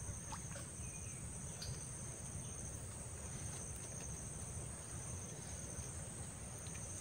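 Steady, high-pitched insect chorus, crickets or cicadas, over faint low background noise.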